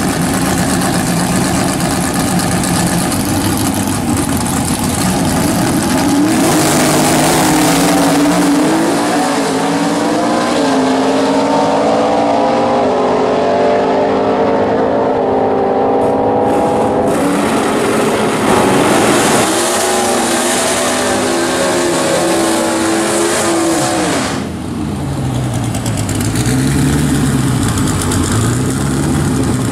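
Drag-race car engines: a first-generation Ford Mustang fastback and its opponent running at the start line, then launching at full throttle about six seconds in and pulling away down the track, the pitch climbing and dropping back with each gear change. Near the end a Ford Thunderbird drag car's engine revs up and down repeatedly while it spins its rear tyres in a smoky burnout.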